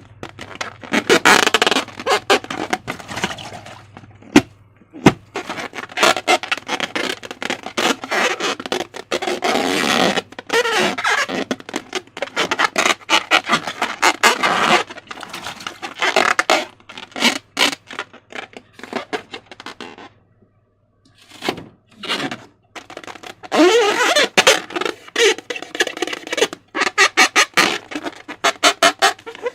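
Slime being squeezed and worked by hand: a dense run of wet squelches and crackling air-bubble pops, which stops briefly about twenty seconds in and then resumes.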